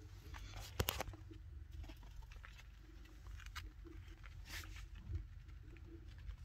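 Light scattered scratching and pattering of baby chinchillas' small feet on a cloth playpen floor, with a couple of sharp clicks just under a second in, over a low steady hum.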